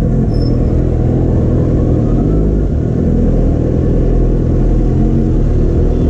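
Yamaha FZ6's 600 cc inline-four motorcycle engine running steadily at low revs while the bike creeps along in slow traffic.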